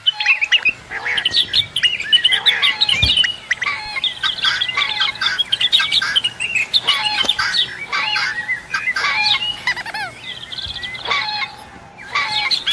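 Many birds chirping at once, a dense run of quick high chirps and short calls overlapping; it thins out briefly shortly before the end.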